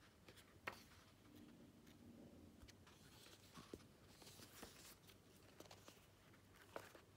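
Faint rustling of paperback pages being leafed through by hand, with a couple of soft paper flicks, one about half a second in and one near the end.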